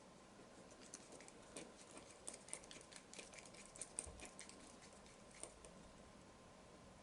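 Faint, quick clicking and tapping of small plastic and metal model-car parts being handled and fitted together. The clicks come in an irregular cluster from about a second in to past five seconds, with one sharper tick near four seconds.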